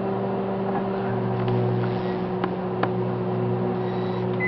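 Microwave oven running with a steady hum while grapes inside arc and spark, giving a few sharp snaps. Near the end a short high beep sounds and the hum cuts off.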